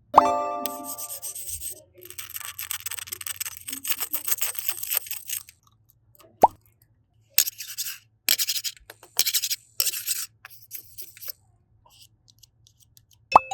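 Slime being handled, making crackly, rustling squishing noises in bursts. It is framed by short rising 'plop' sound effects, one at the start and another about six seconds in.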